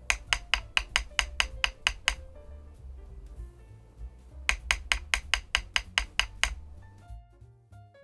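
Typing on a Weikav Stars75s aluminium-cased 75% mechanical keyboard with PBT keycaps: two quick runs of about ten crisp keystrokes each, roughly five a second, with a pause between them. Background music plays underneath.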